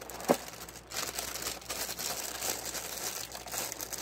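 Clear plastic liner bag of a cereal box crinkling and rustling as it is pulled and worked open by hand, with a sharp click about a third of a second in.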